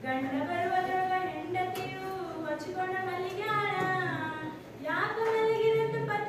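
A girl singing a Kannada folk song solo and unaccompanied, in long held notes with sliding pitch; she breaks off briefly about four and a half seconds in, then slides up into a new held note.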